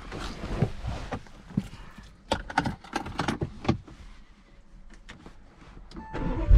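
Scattered clicks, knocks and small rattles of handling inside a car. Right at the end the Audi RS6's twin-turbo V8 starts with a sudden loud low rumble.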